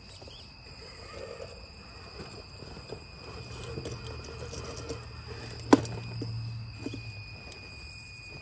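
Electric drivetrain of a 1:10 scale RC trail crawler whirring under load as it crawls over a concrete step, the whir building from about midway. A sharp knock a little past halfway is the truck striking the stone step, and a steady high, thin tone runs throughout.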